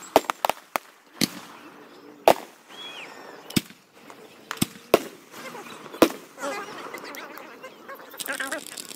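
Aerial fireworks going off: about ten sharp bangs at irregular intervals, several close together near the start and single loud ones about two, five and six seconds in.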